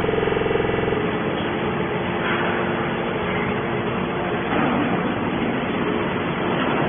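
Gas engine of a hydraulic scrap baler running steadily. For about the first second it gives an even, pitched engine note; after that a rougher, noisier sound takes over.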